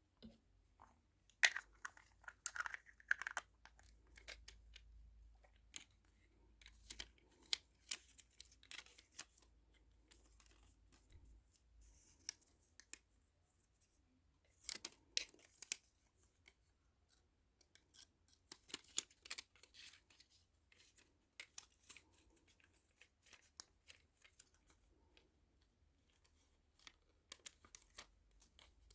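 Faint, irregular clicks, scrapes and crinkles from handling small plastic pieces and packaging, with clusters of quick ticks a few seconds apart.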